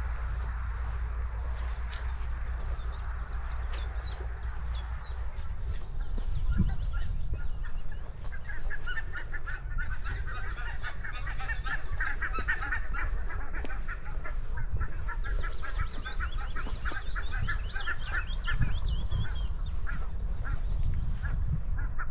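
A flock of geese honking, many short calls overlapping, sparse at first and thickest from about eight seconds in until near the end, over a steady low rumble.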